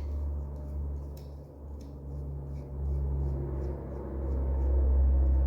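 Steady low hum that swells near the end, with a few faint light clicks of small parts and tools being handled while a carburetor jet is removed.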